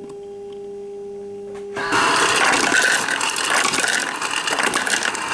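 Refrigerator door ice dispenser running: a steady hum, then about two seconds in a loud grinding rattle as the ice maker's auger pushes small ice cubes out of the chute, clattering into a cup. The ice shoots out violently, so cubes can miss the cup and land on the floor.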